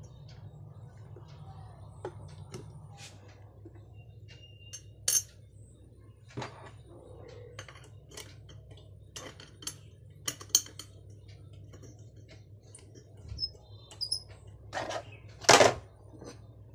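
Scattered clicks, clinks and a few sharper knocks of small parts and tools being handled during speaker repair work, over a steady low hum.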